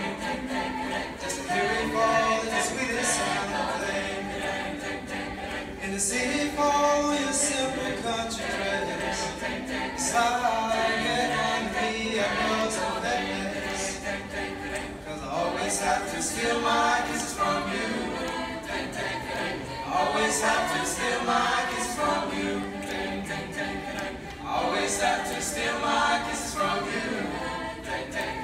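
Mixed-voice a cappella group singing in harmony, a male lead singing into a microphone over the ensemble's backing voices.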